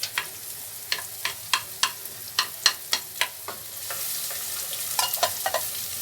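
Chopped onion frying in butter and oil in a pot, stirred with a utensil that clacks sharply against the pot again and again. The sizzling grows louder about four seconds in as the onion starts to sauté.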